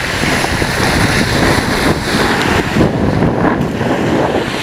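Wind buffeting the microphone and water rushing past the hulls of a Tornado catamaran under sail, a loud, uneven noise that swells and eases in gusts.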